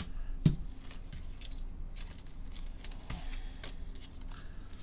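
Trading cards handled by gloved hands on a table: a scatter of soft clicks and rustles as cards are picked up and sorted.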